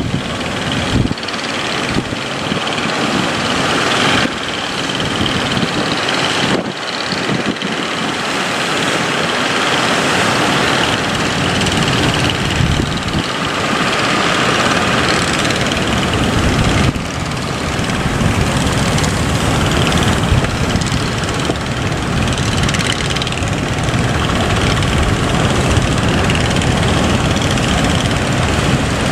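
A boat's engine running under way, with a loud steady rush of wind and water noise.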